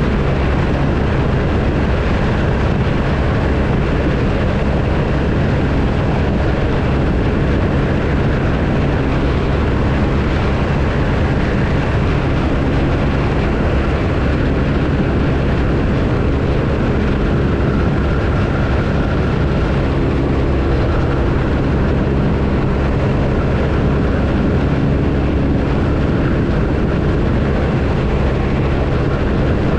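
BMW R1250RT's boxer-twin engine running at a steady speed under wind and road noise, with no change in engine speed.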